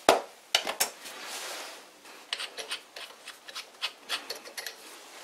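A twist drill being taken out of a tool-post drill chuck by hand: two sharp metal clicks near the start, a short rubbing sound, then a run of light metallic clicks and scrapes as the chuck is loosened and the bit handled.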